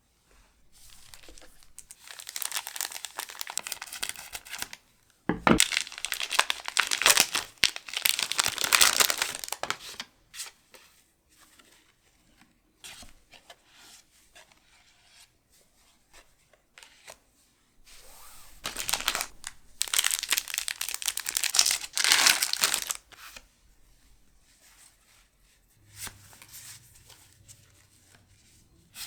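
Pokémon booster pack foil wrappers being torn open and crinkled by hand. There are two long spells of tearing and rustling, the first with a sharp snap partway through, and quieter handling between them.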